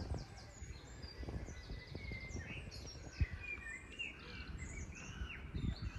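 Several small birds chirping and trilling, overlapping short calls throughout. Underneath is a low rumble with scattered thumps, the loudest a single sharp knock about three seconds in.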